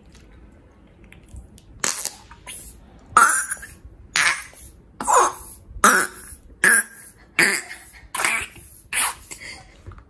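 Slime fart sounds: a rubber bulb pump forces air through purple slime packed around a squishy pig toy, making about ten short, wet squelching bursts in quick succession. The bursts start about two seconds in.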